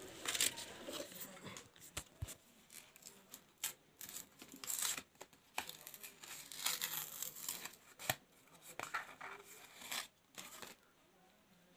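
Cardboard backing card and clear plastic blister of a pen drive's retail package being torn and peeled apart by hand, in irregular bursts of tearing and crinkling with a few sharp clicks. It stops near the end.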